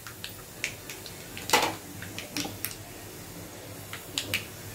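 Scattered sharp pops and crackles, irregular and a few at a time, from a small pan of hot oil tempering with mustard seeds, cumin, dal, chillies and curry leaves, just after turmeric has been added. The loudest pop comes about a second and a half in.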